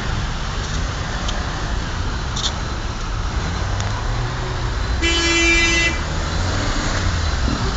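Traffic-jammed city street: a steady rumble of idling and creeping car engines, with a car horn honking once for about a second around five seconds in.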